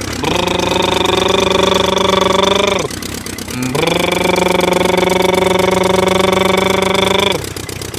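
A man's voice imitating a vehicle engine for a toy tractor: two long, steady droning notes, each bending up at the start and dropping away at the end, with a short break about three seconds in.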